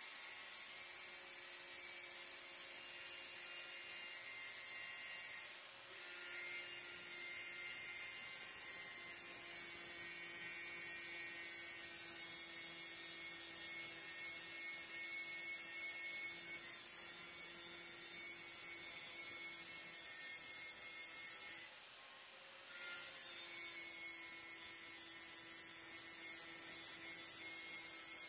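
A steady hum over a light hiss, dropping out briefly twice.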